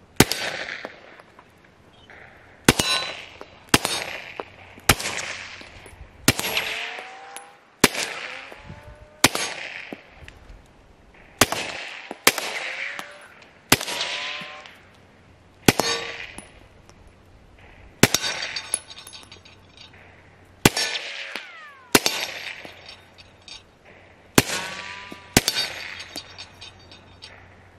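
Suppressed 9mm Glock 34 pistol firing a slow string of about eighteen shots, one every second or two, each crack followed by a fading echo. The suppressor is a drilled-out JK Armament solvent trap with its baffles still unclipped, taking its first rounds.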